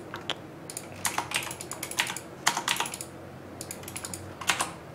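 Computer keyboard keys clicking in short, irregular bursts of typing.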